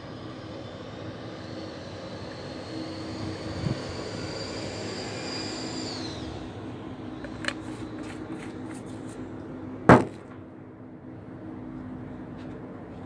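A steady rumble with a high whine that drops away about six seconds in, as of a jet aircraft passing overhead. A few light clicks, then one sharp knock about ten seconds in.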